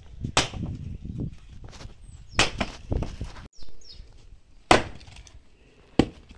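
Axe splitting firewood logs on a chopping block: about five sharp chopping blows, the last two the loudest.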